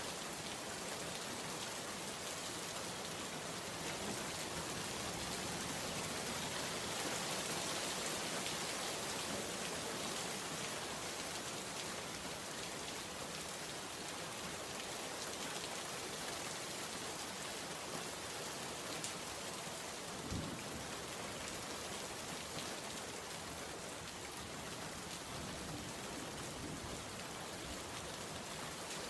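Steady heavy rain, an even dense hiss of drops falling on leaves and a wet road.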